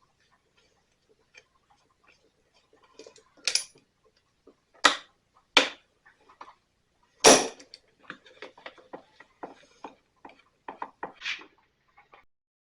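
Hand tools working on screws in a backpack blower's plastic housing: a few sharp knocks and clanks, the loudest about halfway through, then a quick run of small clicks and taps.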